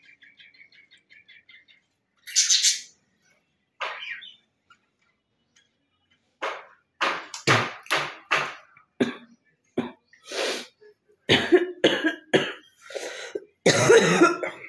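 A woman coughing hard with a chest cough full of long-built-up phlegm: two short sharp coughs early on, then a rapid string of about a dozen loud coughs and throat-clearing from about six seconds in. A bird chirps rapidly at the start.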